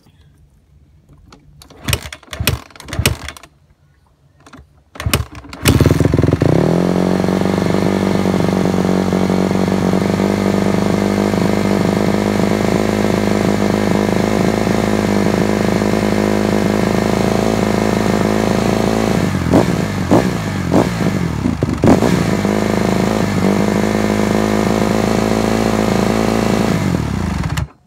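Honda dirt bike's single-cylinder engine: a few short sharp attempts, then it catches about six seconds in and idles steadily, with a few quick blips of the throttle two-thirds of the way through, before cutting off abruptly near the end. The bike will only keep running with the choke on, which the owner puts down to the carburettor's pilot jet.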